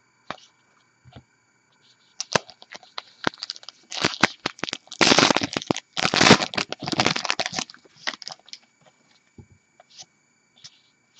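Foil trading-card pack wrapper being torn and crumpled in the hands: scattered crackles, then a few seconds of loud, dense crinkling that dies back to a few clicks near the end.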